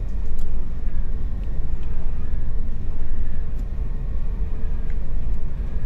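Steady low rumble of background machinery with a faint constant hum, and a few faint ticks.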